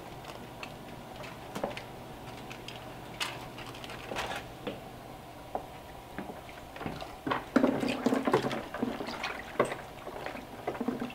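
Freshly cooked snack sticks lowered by gloved hands into an ice-water bath in a cooler, chilling them after cooking. The water sloshes and splashes, loudest from about seven and a half seconds in, after scattered light clicks and rustles of handling over a steady low hum.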